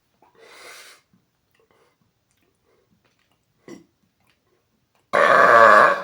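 A man's deliberate, very loud burp, low-pitched and lasting about a second, near the end; it reads 118.3 dB on a C-weighted decibel meter. Before it come a breathy intake of air and a short gulp.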